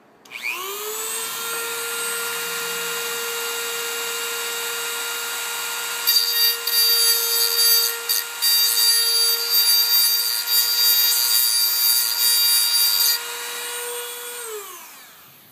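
Dremel rotary tool spinning up with a rising whine and running at a steady high pitch, then grinding a little off the end of a short piece of code 83 HO model rail from about six seconds in to about thirteen, before winding down with a falling whine.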